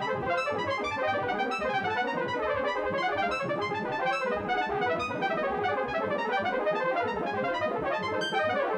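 French horn playing a fast, dense stream of short overlapping notes at many pitches, with no pause. Each note's pitch and length stand for the size of one gap between consecutive prime numbers, so the melody has no regular tune.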